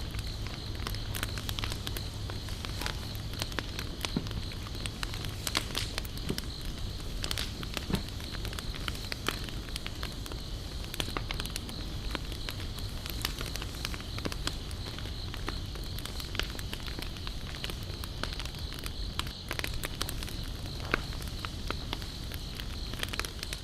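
Wood campfire crackling and popping, with irregular sharp snaps throughout. Behind it runs a steady high insect trill.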